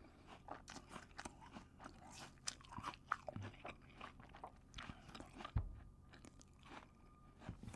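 A crisp apple being bitten and chewed: many quick, wet crunches one after another, with a sharper crunch about five and a half seconds in.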